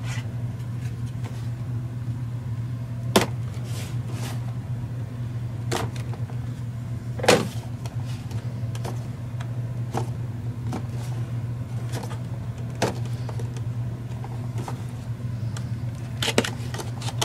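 Cardboard retail box of a trail camera being handled and its top flap worked open: scattered sharp clicks and taps, the loudest about three and seven seconds in, over a steady low hum.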